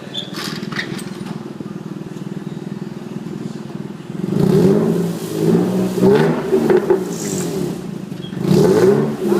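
Infiniti G35's 3.5-litre V6 through a non-resonated Injen SES exhaust with test pipes and an X-pipe, idling steadily, then blipped several times about four seconds in and again near the end, the revs rising and falling. The exhaust has a leak.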